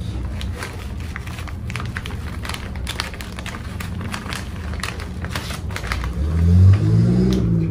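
Stiff sego gele fabric rustling and crackling in repeated short strokes as pleats are folded and pressed by hand, over a steady low rumble; a voice sounds briefly near the end.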